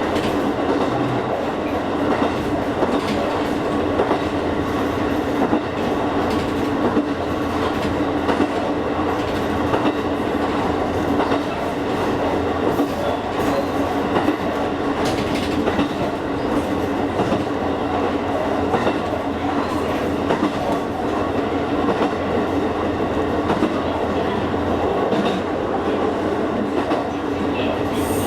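Kakogawa Line train running steadily along the track, heard from inside the carriage: an even running hum with a held low tone and scattered clicks of the wheels over rail joints.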